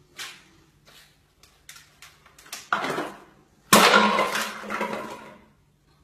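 A white cockatoo at its plastic toy baskets: a few light taps and clicks, then two harsh, noisy bursts about three and four seconds in. The second is the loudest and fades over about a second and a half.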